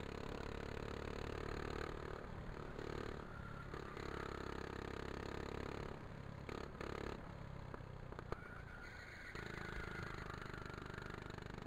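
Kart engine running on track, heard from on board: its note drops away as the throttle comes off for corners and picks up again about nine seconds in as the kart accelerates out. A single sharp knock about eight seconds in.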